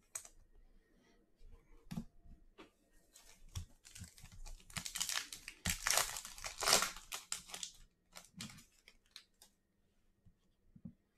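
Foil wrapper of a trading-card pack being torn open and crinkled, with light clicks of cards being handled. The crinkling is loudest in the middle and dies away, leaving a few small clicks near the end.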